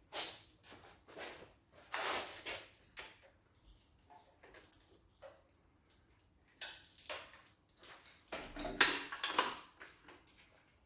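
Intermittent knocks, clinks and scrapes of metal engine parts and hand tools being handled during an engine teardown, with the busiest clatter about two seconds in and again around nine seconds.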